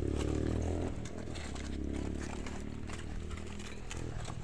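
A low, steady motor-like drone, strongest in about the first second, with scattered clicks and rustles of cabbage leaves and a basket being handled.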